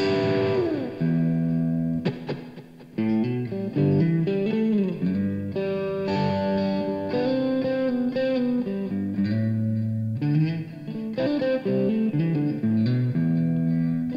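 Rock'n'roll band playing, with electric guitar over bass guitar. It comes in with a falling guitar slide.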